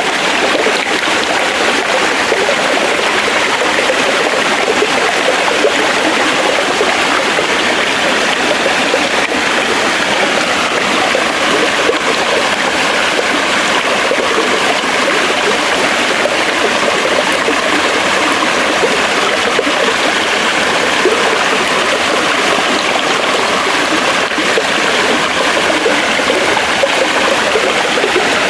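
Forest stream running over rocks: a steady, loud rush of flowing water with no let-up.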